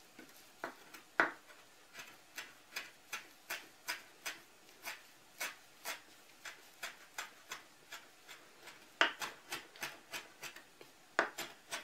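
Chef's knife chopping parsley leaves on a wooden cutting board: a steady run of sharp knife strikes, about three a second, getting louder and quicker from about nine seconds in.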